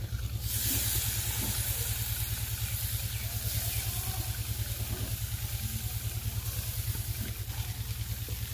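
Marinated fish pieces sizzling on the hot grate of a clay tandoor over glowing charcoal: a steady hiss that starts just after a piece is laid down and cuts off suddenly near the end. A steady low throb runs underneath.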